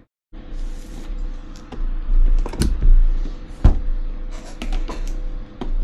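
Hands working at a cardboard collectible box, trying to get it open: an irregular run of clicks, taps and scrapes over a steady low electrical hum. The sound starts after a brief dead gap.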